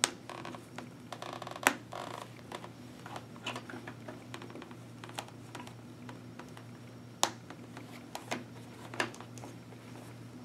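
Hands pressing a Schuberth C3 helmet's padded neck roll back into the shell: fabric and foam rustling, with sharp plastic clicks and snaps as it seats. The loudest clicks come just after the start, a little under two seconds in, and about seven seconds in.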